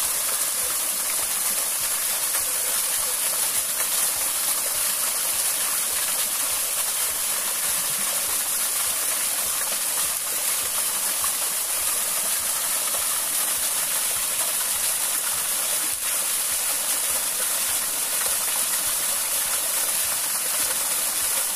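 Small waterfall pouring onto rock and into a shallow pool: a steady, even rush of splashing water.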